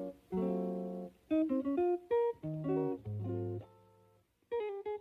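Background music: plucked acoustic guitar notes and chords, with a short pause a little before the end.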